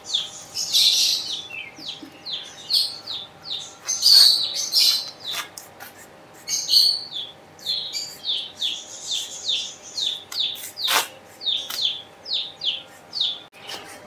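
Small birds chirping busily, many short falling chirps a few each second, with one sharp click late on.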